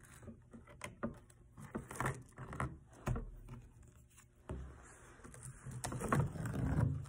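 Tape being peeled off a painted canvas in short noisy pulls, with scrapes and light knocks from handling the canvas; the loudest, longest pull comes near the end.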